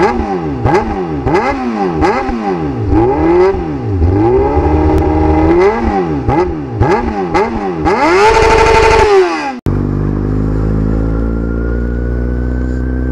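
Motorcycle engine revved up and down in quick repeated blips, then held at high revs before cutting off suddenly about ten seconds in. After the cut, a Kawasaki Z750's inline-four runs steadily while riding at an even speed.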